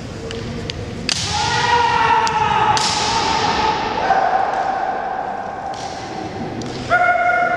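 Kendo fighters' long drawn-out kiai shouts, one after another. Sharp clacks of bamboo shinai striking come in between, and the hall gives them an echo.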